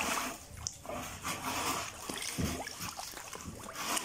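Water sloshing and splashing in a plastic tub as hands move whole plucked duck carcasses through it, washing them before roasting.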